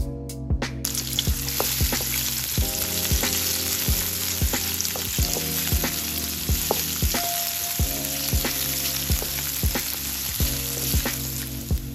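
Chopped garlic sizzling in hot oil in a wok, the sizzle starting about a second in, with a spatula stirring it. Background music with a steady beat plays underneath.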